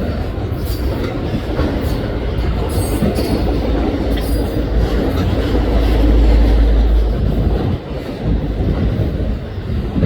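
Auto rack freight cars of a passing train rolling by: a steady rumble of steel wheels on the rails, with clatter over the rail joints and brief high squeals.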